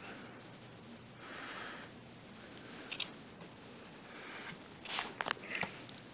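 Loose pipe tobacco being pinched and pressed into a wooden pipe bowl by hand: faint rustling and crackling, with a few sharp clicks around the middle and a couple of short breaths through the nose.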